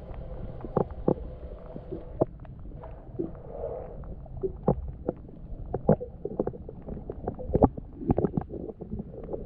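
Water lapping and knocking against a small boat's hull: irregular clunks and gurgles over a low rumble.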